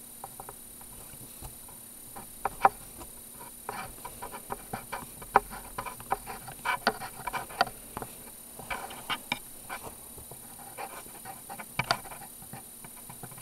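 Screw-in tungsten-carbide grip stud being turned by hand with its installation tool into a rubber knob of a Vee Rubber Mission fat bike tire: irregular small clicks and short scraping noises as the tool twists, with a few sharper clicks.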